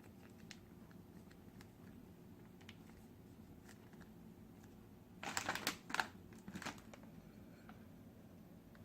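Close-miked eating of spicy instant noodles: faint mouth clicks and chewing, then a loud crackly spell of noodle slurping about five seconds in, lasting under two seconds.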